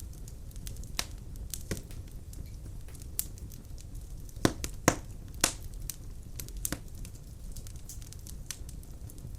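Wood fire crackling in a fireplace: irregular sharp pops and snaps over a low steady rumble, the loudest few coming together about four and a half to five and a half seconds in.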